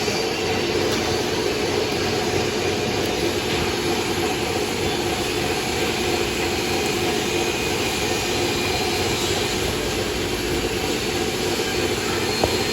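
Steady machine noise, a constant roar with a low hum in it, unbroken throughout.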